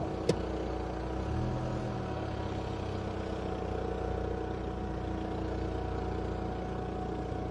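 Opel car engine running steadily at low revs, with a brief rise in the low hum between one and two seconds in. A single sharp click comes just after the start.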